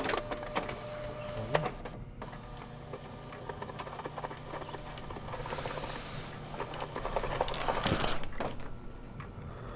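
Fax machine running, with mechanical clicking and whirring.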